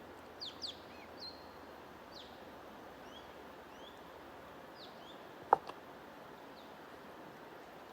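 Small birds chirping in short rising and falling notes, busiest in the first second and a half, over a steady hiss. A single sharp knock about five and a half seconds in is the loudest sound.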